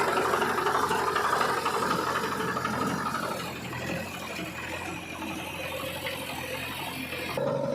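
Diesel engine of heavy earth-moving machinery running under load, with mechanical rattling. It is louder for the first few seconds, then settles lower.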